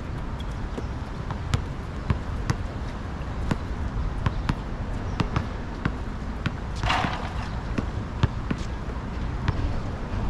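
Basketball bouncing on an outdoor hard court as players dribble: a run of sharp, irregularly spaced bounces over a steady low background rumble, with a short noisy burst about seven seconds in.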